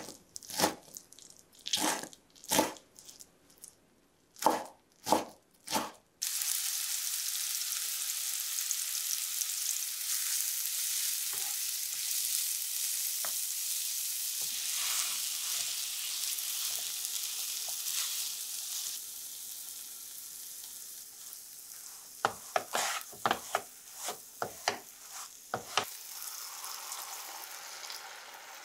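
A kitchen knife chopping butterbur sprouts on a wooden cutting board, a run of crisp strokes about every half second. About six seconds in, the chopped buds hit hot oil in a frying pan and a steady sizzle starts suddenly, slowly dying down as they are stir-fried. Near the end a quick series of knocks comes from the wooden spatula in the pan.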